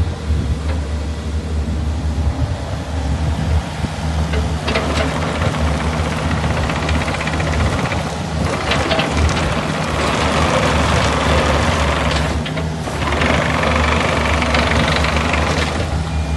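Kubota KX71-3 mini excavator's diesel engine running steadily. From about four and a half seconds in, a louder noisy working sound joins it, with brief lulls around eight and twelve seconds.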